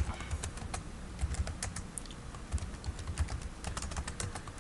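Typing on a computer keyboard: quick, irregular key clicks, several a second, in short runs.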